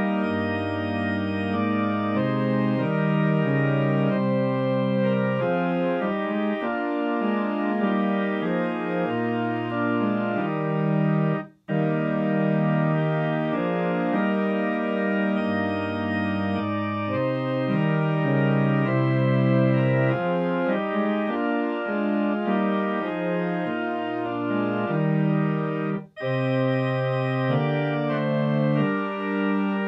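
Organ playing slow, held chords over a changing bass line. The music cuts out for an instant twice, about 12 and 26 seconds in.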